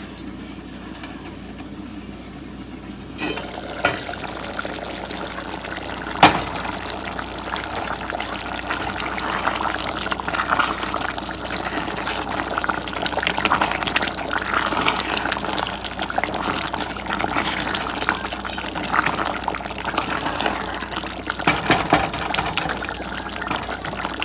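Mutton frying in a kadai, a steady sizzling hiss that grows louder about three seconds in, with a few sharp knocks of a utensil against the pan, the loudest about six seconds in.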